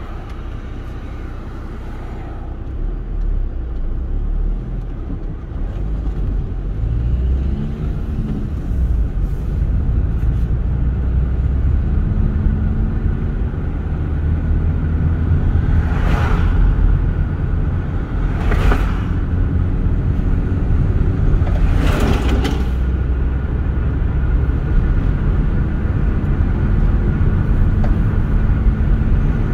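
A car driving on the road: a steady engine and road rumble, with the engine pitch rising and falling as it accelerates and changes gear. Three short hisses pass about 16, 18 and 22 seconds in.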